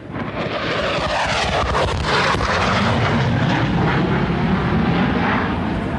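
Jet aircraft roaring overhead: a loud, steady jet-engine rush with a slowly sweeping, swishing tone, the sound of a jet flying past.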